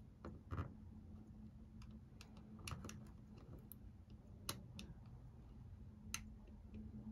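Faint, scattered clicks and scrapes of a flat cutter blade prying the adhesive-backed control board off a Canon EOS M's back plate, a handful of small sharp clicks spread over several seconds, over a faint steady hum.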